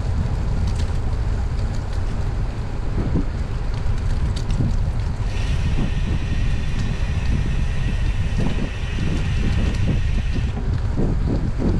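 Wind buffeting the microphone of a bicycle-mounted or rider-worn camera while cycling on a paved trail, a steady low rushing noise. From about five seconds in, a steady high buzz joins it for about five seconds, then stops.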